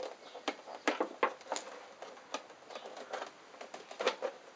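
Irregular sharp plastic clicks and knocks as a Rex scooter's front headlight fairing is worked loose by hand and its clips let go.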